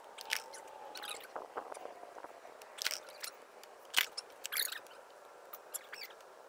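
Scattered sharp clicks and scrapes of shoes and an Inmotion V3 electric monowheel knocking on the road as a rider stumbles off and steps back on, the sharpest knock about four seconds in. Under the first few seconds runs a faint whine that falls slowly in pitch.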